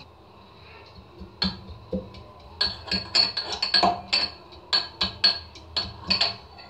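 Metal pestle pounding ginger pieces in a metal hamam dasta mortar, crushing them to draw out the juice: two separate ringing strikes, then a quick run of about three to four clanking strikes a second from about two and a half seconds in.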